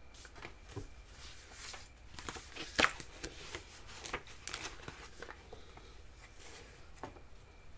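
Faint scattered rustling and light clicks of objects and paper being handled, with a few sharper ticks, one louder about three seconds in.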